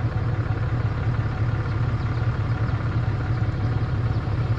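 A tow vehicle's engine running steadily, a low even hum with no change in speed.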